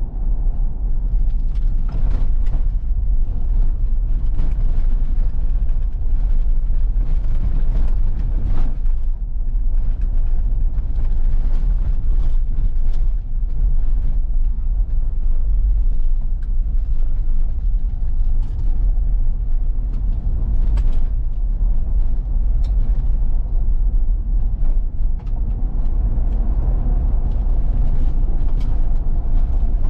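Inside the cabin of a 2023 Ford Bronco driving over a rough dirt track: a steady low rumble from tyres and drivetrain, with frequent short knocks, creaks and rattles as the suspension and body work over the bumps.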